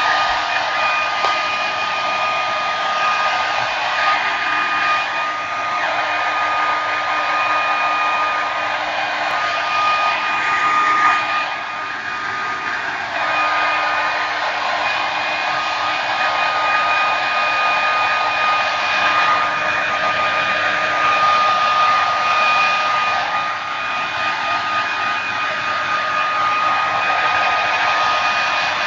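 A small electric blower motor running steadily, like a hair dryer: continuous rushing air over a steady high whine, dipping briefly about twelve seconds in.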